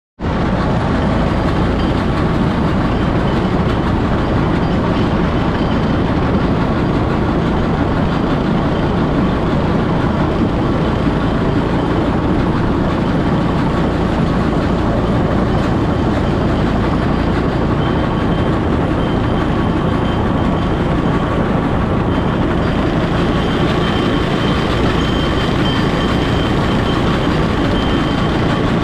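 Rail kart rolling along old jointed track: steel wheels rumbling steadily on the rails. A thin high tone comes in faintly over the last few seconds.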